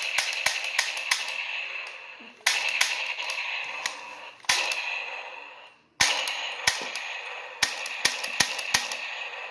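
Toy Glock 45 pistol being fired repeatedly: sharp trigger clicks, and several sudden hissing gunshot sound effects that each fade over a second or two.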